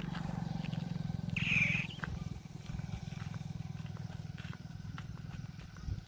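A steady low rumble with a fast, even pulse, and a short high-pitched cry about a second and a half in that is the loudest moment.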